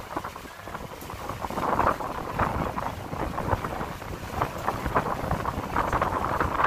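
Wind buffeting the microphone on the open deck of a tour boat underway, over the low rumble of the boat moving through the water; the gusts swell and fade unevenly.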